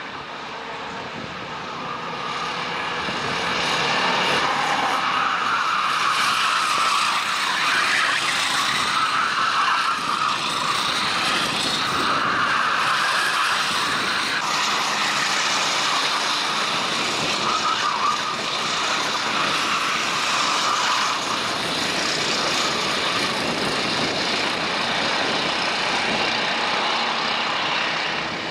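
Racing kart engines running at high revs as karts lap at speed. The sound builds over the first few seconds and then stays steady and loud.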